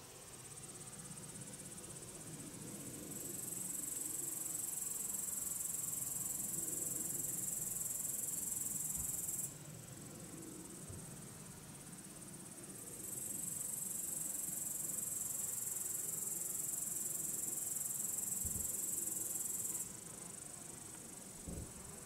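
A meadow insect stridulating: a high-pitched, continuous trill that swells loud about three seconds in, breaks off abruptly about halfway, and returns for a second long spell, with a fainter trill in the gaps. Underneath, honeybees buzzing around the wooden hives make a soft, wavering low hum.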